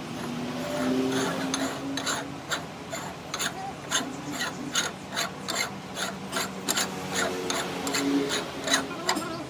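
A hand rubbing and scraping around the inside of a steel truck wheel hub bore, in quick regular strokes about three a second, over a steady low hum.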